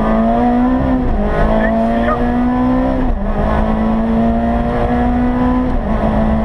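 Rally car engine accelerating, heard from inside the cabin: its pitch climbs steadily through each gear, dropping at an upshift about three seconds in and again near the end.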